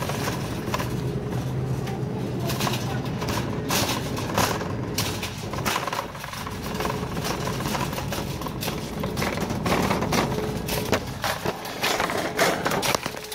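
Grocery-store background sound: a steady hum under scattered knocks and clatter, with indistinct voices.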